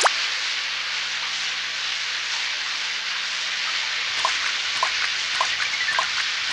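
Cartoon rain sound effect: a steady hiss of heavy falling rain. It opens with a short sharp click, and from about four seconds in a run of short pitched plinks, about two a second, sits over the rain.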